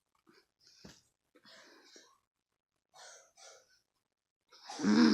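A person breathing out in short, faint huffs through the mouth while eating strong cough mints that sting; he has just said it hurts. About a second before the end comes a loud voiced sound, a cough or groan.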